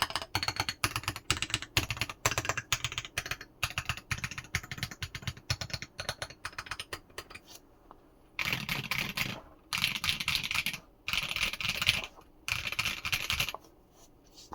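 Typing on a 60% mechanical keyboard, a Pi60 PCB in a Tofu60 Redux case with plate foam: a steady run of keystrokes, then four bursts of rapid key-mashing about a second each, starting a little past halfway.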